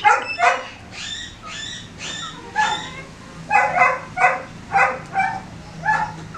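A dog barking in a quick series of short yaps, roughly two a second.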